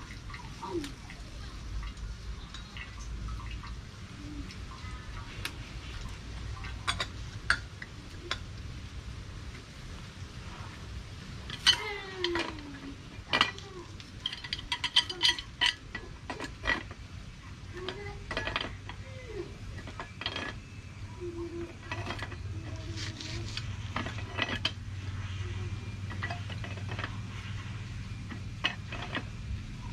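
Scattered metallic clinks and knocks of pipe fittings and tools being handled on a hand pump, thickest about halfway through, over a faint low hum.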